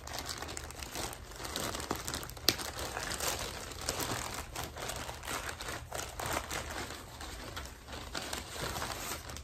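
Plastic mailer bag crinkling and rustling in the hands as it is pulled open, with irregular crackles and one sharper snap about two and a half seconds in.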